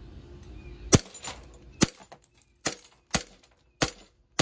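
Green-gas blowback BB pistol (a Glock 19X replica) firing single shots at a glass bowl: about six sharp cracks, irregularly spaced half a second to a second apart, the first loudest. The hits break the bowl into shards.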